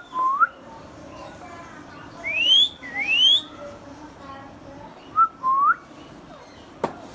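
Indian ringneck parakeet whistling a series of short rising whistles, the two loudest and highest about two to three seconds in, with a sharp click near the end.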